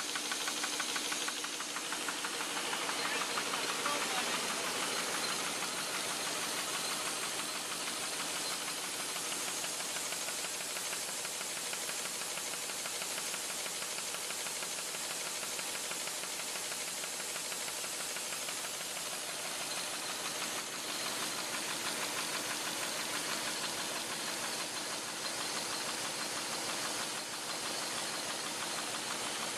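Curtius envelope-making machine running at production speed: a rapid, even mechanical clatter over a steady hiss.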